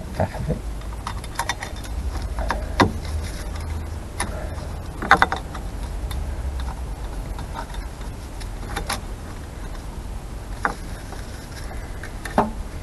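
Brake shoes and a return spring being handled and fitted on a Morris Minor 1000's rear drum brake backplate: a scatter of light metallic clicks and knocks, the loudest about five seconds in, over a steady low rumble.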